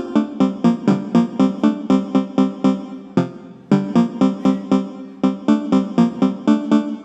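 Electronic ringtone melody of quick, evenly spaced keyboard-like notes, about four a second. About three seconds in, one note is held, there is a short break, and then the run of notes resumes.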